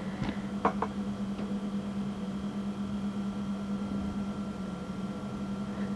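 Steady mechanical hum with a faint higher whine from a birthing simulator's compressed-air delivery system as it pushes the model baby out. There are a few faint clicks in the first second.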